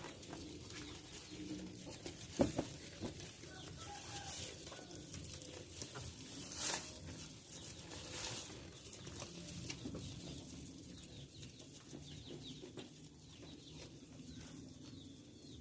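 Scattered short animal calls over a faint steady background, with a few sharp knocks, the loudest about two and a half seconds in.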